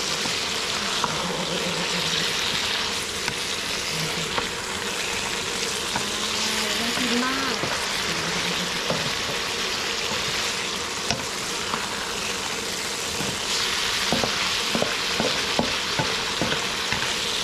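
A spicy mackerel stir-fry sizzling steadily in a hot pan as it is stirred, with a utensil clicking and scraping against the pan, more often near the end.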